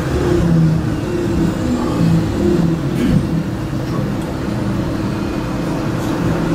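Manchester Metrolink tram running on street track, heard from inside the passenger cabin: a steady motor hum and rumble from the wheels on the rails, with one brief clack about three seconds in.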